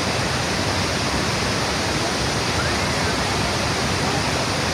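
Steady, even rush of the Horseshoe Falls at Niagara, the great volume of falling water and spray making a continuous loud noise with no break.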